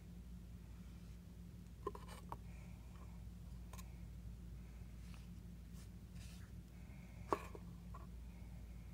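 Paintbrush working paint onto paper: faint scratchy brushing with a few light taps and clicks, the sharpest about seven seconds in, over a steady low hum.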